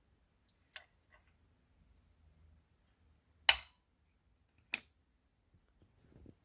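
A few sharp clicks and knocks of small hard parts being handled, the loudest about three and a half seconds in, with a faint rustle near the end.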